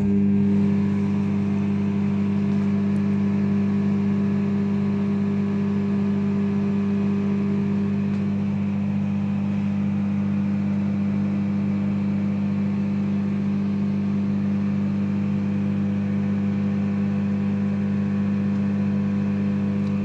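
LG microwave oven running, heating a dish of dried fish. It gives a steady hum with a strong low tone and fainter steady tones above it.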